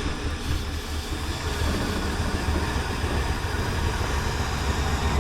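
Derby car's old engine running on gasoline poured down the carburetor as it pulls the car along, a steady low rumble with no break.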